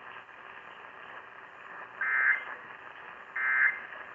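Emergency Alert System end-of-message (EOM) data bursts over AM radio hiss: two short buzzing bursts about 1.4 s apart, starting about two seconds in. They signal the end of the alert.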